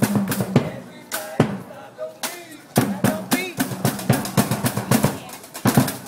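Bucket drumming: several drummers beat with sticks on plastic buckets, plastic barrels and an upended trash can in a fast, driving rhythm. The beat thins out for about two seconds near the start, then picks up again at full pace.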